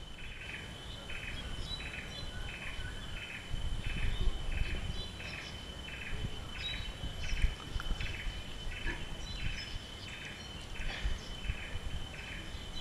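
Outdoor insect and bird ambience: a chirping call repeating steadily about twice a second over a continuous high-pitched whine, with a few faint bird chirps and a low rumble underneath.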